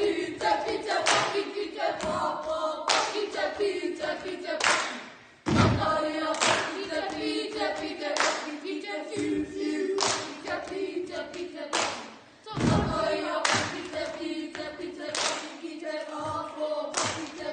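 A large group of school children singing a Māori action song in unison, with a clap or stamp on the beat about once a second. The song pauses briefly twice between verses.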